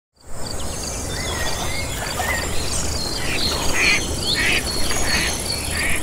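Outdoor nature ambience: insects buzzing steadily, with a few bird whistles and then a bird calling over and over, about five times in the second half, over a low steady rumble.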